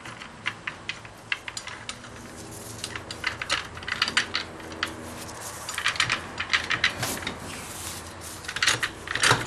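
Irregular metal clicking and rattling as a clutch hub is wiggled down into place inside an F4A42 automatic transaxle, metal parts knocking against each other. The clicks come thicker in the second half.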